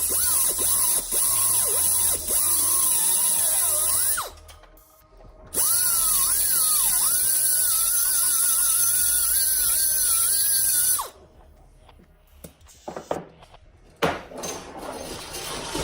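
Electric power tool running in two long bursts with a brief stop between. Its whine dips and rises as it comes under load, over a steady hiss. It then stops, followed by a few scattered knocks and a sharp click near the end.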